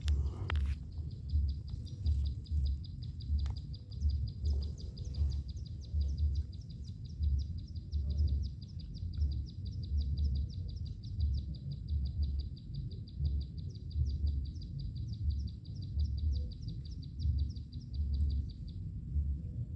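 A high-pitched chirping trill, about five pulses a second, runs steadily and stops shortly before the end, over a low rumble that swells and fades irregularly.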